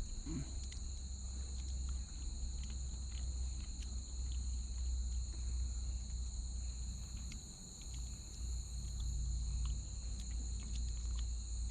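Steady chorus of Amazon rainforest insects, two shrill high tones held without a break, over a low rumble and scattered faint clicks.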